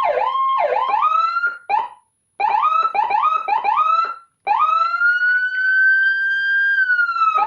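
Electronic siren module playing a Barracuda-style siren tone through its speaker: quick, repeated short rising whoops with two brief breaks, then a long wail that climbs, holds and cuts off abruptly near the end.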